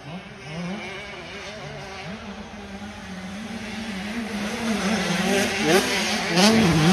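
Motocross bike engine revving up and down as the rider works the throttle, growing louder as it approaches toward the end.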